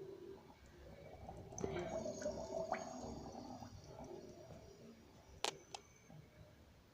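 Darth Vader-style mechanical respirator breathing: one drawn breath about one and a half seconds in, then two sharp clicks near the end.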